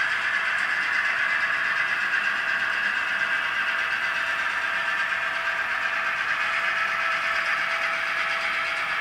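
Model train running steadily along layout track: a pair of BNSF diesel model locomotives pulling cars. The running sound is even and unbroken, with a faint steady tone beneath it.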